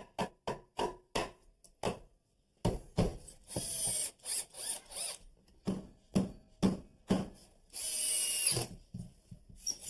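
Power drill driving screws into wood framing lumber in several short runs with pauses between. A quick run of regular clicks in the first second or so, then whirring bursts as the screws bite in, loudest about four and eight seconds in.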